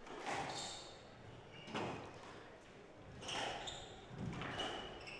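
Squash ball being struck by rackets and rebounding off the court walls, about five sharp hits ringing in a large hall, with short squeaks from players' shoes on the wooden floor.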